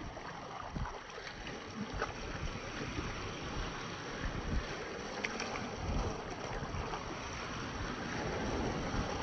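Small lake waves splashing and washing over rocks and a pebble beach, with wind buffeting the microphone.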